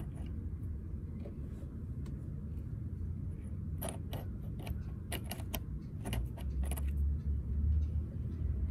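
Light metallic clinks and taps from tools and small metal parts being handled, scattered through the middle of the stretch, over a low steady rumble that grows louder near the end.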